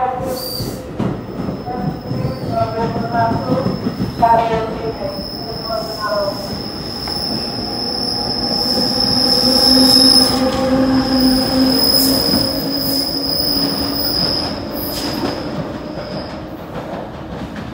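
NJ Transit multilevel passenger train pulling out, its cars rolling past with a steady high-pitched wheel squeal. A low hum swells to a peak about ten seconds in, then fades as the train draws away.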